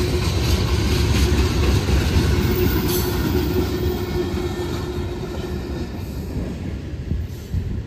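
Freight train of tank cars rolling past: a steady rumble of steel wheels on the rails with clickety-clack and a clank about three seconds in, growing a little quieter in the second half.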